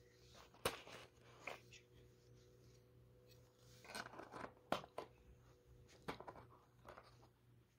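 Faint handling noise from plastic toy coop parts: scattered light clicks, knocks and rustles as the pieces are handled and fitted together.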